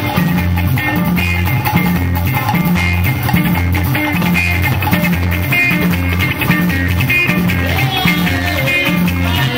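Live band music without singing: an electric guitar plays bright melodic lines over a repeating bass line and drums.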